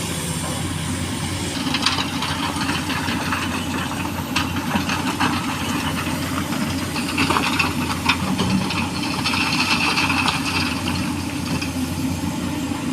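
Excavator's diesel engine running steadily, with scattered knocks and clattering over it and a short high whine midway.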